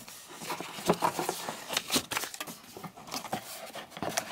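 Cardboard packaging being handled: a paper card and a corrugated cardboard insert slid and lifted out of a box, giving a run of irregular rustles, scrapes and light taps.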